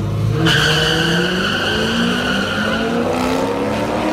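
Two cars, one of them a C5 Corvette V8, launching off the line at a drag strip. About half a second in the engines rise steadily in pitch as the cars accelerate away, with a high, steady tyre squeal over the first few seconds.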